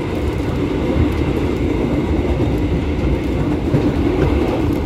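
Electric commuter train running steadily at speed, heard from inside the carriage: a continuous low rumble of the moving train.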